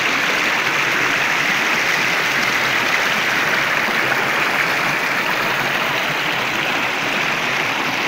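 Shallow, fast-flowing rocky river running over and between stones: a steady, even rush of water.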